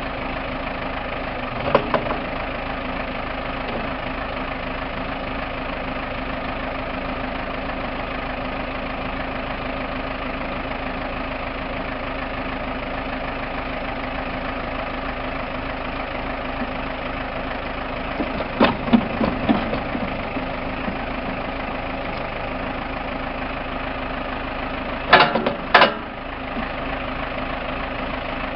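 2003 Case 580M backhoe loader's diesel engine idling steadily, with a few short, loud clanks: once about two seconds in, a cluster past the middle and two near the end.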